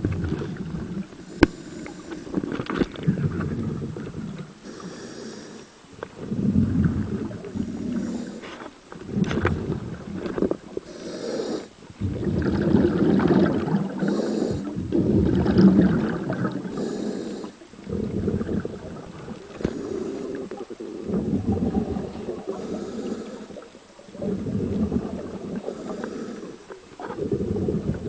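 A scuba diver breathing underwater through a twin-hose regulator, in a steady cycle every few seconds: a short hiss of air on each inhale, then a longer rumbling, gurgling rush of exhaled bubbles. A few sharp knocks of gear come in the first half.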